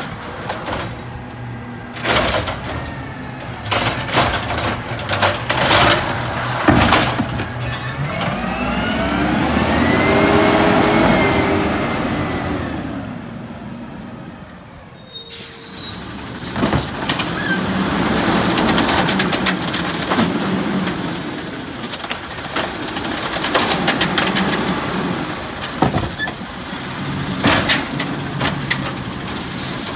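Automated side-loader garbage trucks at work: a truck engine runs under sharp metallic knocks and clanks, then rises in pitch and fades as the truck pulls away, about a third of the way in. After that a second side-loader's engine idles, again with clanks from its arm and the carts.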